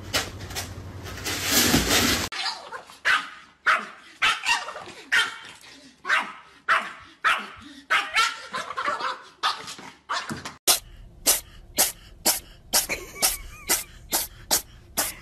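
Small terrier barking over and over at a squirrel on the other side of a glass door, in short sharp barks. Near the end the barking gives way to a quicker run of short, sharp sounds, two or three a second.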